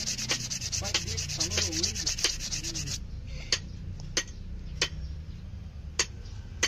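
Sanding on a cleaver knife's steel: a fast, rasping rub that stops abruptly about three seconds in. After that come a handful of sharp, separate clicks or taps, about half a second to a second apart.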